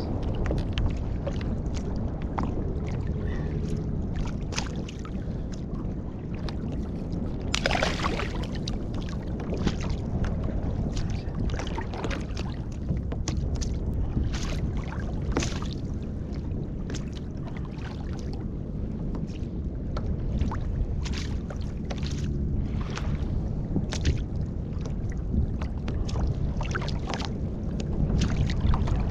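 Sea water lapping and slapping against a sit-on-top kayak's hull over a steady low rush of wind and water, with frequent small slaps and one louder splashing rush about eight seconds in.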